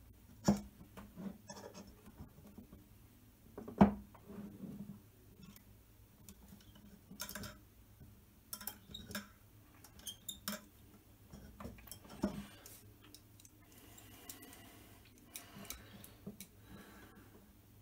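Handling of a digital caliper against an aluminium extrusion on a tabletop: scattered small clicks and knocks as the jaws are slid and set, with a sharper knock about four seconds in.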